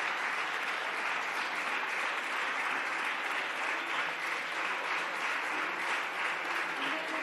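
Steady applause from a group of seated parliamentary deputies clapping their hands.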